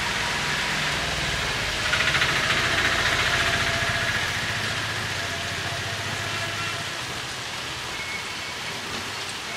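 Heavy rain falling steadily, with a motor vehicle's engine running close by for the first six or seven seconds before it fades. About two seconds in, a louder rush of noise swells for a couple of seconds.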